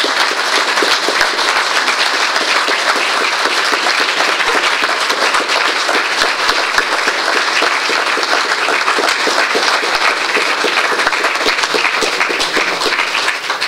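Audience applauding: dense, steady clapping from a room full of people, dying away near the end.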